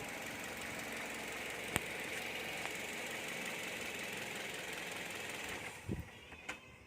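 Toyota Vios engine idling steadily, running cleanly now that its clogged fuel filter has been replaced; the running sound drops away about six seconds in with a soft thump, as if the engine is switched off.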